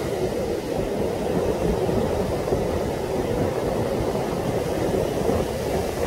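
Strong gusting wind buffeting the microphone in a steady low rumble, over the continuous wash of large waves breaking on a sandy beach.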